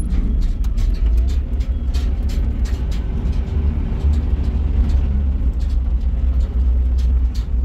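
A small truck driving, heard from inside its cab: a steady low engine and road rumble with frequent sharp rattles and knocks.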